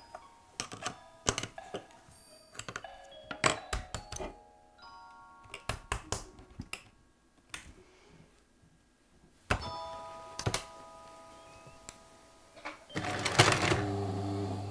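Chiming, bell-like music tones over a run of sharp clicks and knocks; about thirteen seconds in, a Bernina 830 sewing machine's motor starts running with a steady low hum.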